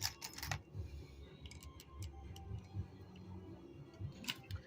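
Light clicks and ticks from handling a Frankford Arsenal hand priming tool and brass cases, with a short cluster at the start, a few scattered clicks in the middle and another short cluster near the end.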